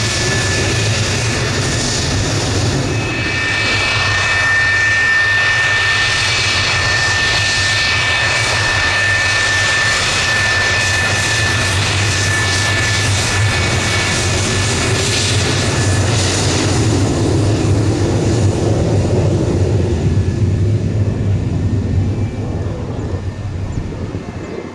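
Twin General Electric J79 turbojets of an F-4E Phantom running at taxi power as the jet rolls past: a steady high whine over a low rumble. After about sixteen seconds the whine fades and a deeper rumble rises, then the sound falls away near the end.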